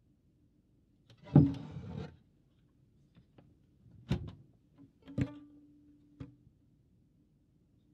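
A violin being lifted out of a trunk and handled. There is a loud rustling clatter about a second in, then a few knocks against the instrument, one of which sets a string ringing for about a second.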